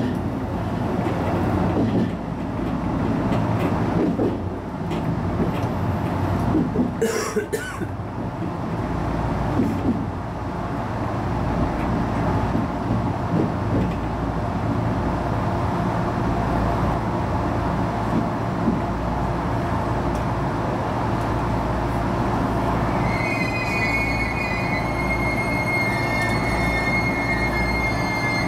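Train running on rails, heard from the driver's cab: a steady rumble, with a brief sharp sound about seven seconds in. From about two-thirds of the way through, a steady high-pitched wheel squeal sets in and holds.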